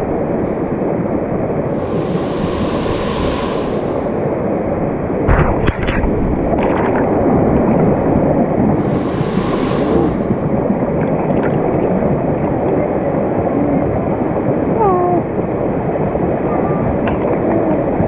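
Salat Dai waterfall rushing, a loud, steady wash of falling water. A few sharp knocks come about five to six seconds in.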